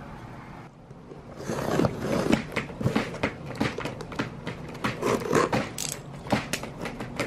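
A cardboard delivery box being torn open by hand: irregular crackling and ripping of tape and cardboard flaps, starting about a second and a half in.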